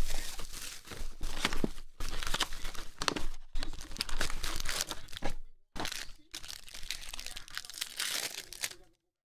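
Plastic shrink wrap crinkling and tearing as it is stripped off a sealed trading card hobby box, then the rustle and tear of a foil card pack being opened. The sound cuts off suddenly near the end.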